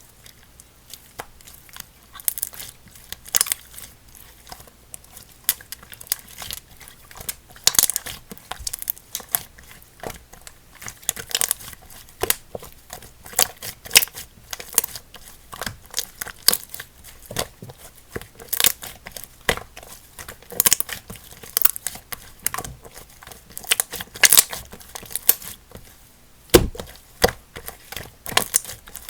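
Clay slime being squished and stretched by hand, giving irregular sticky crackles and pops, several a second, with a crinkly tearing sound. One sharper, louder snap comes near the end.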